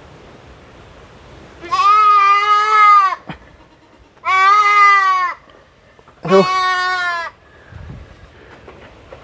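Young Boer goats bleating: three long bleats, each about a second, spaced roughly a second apart.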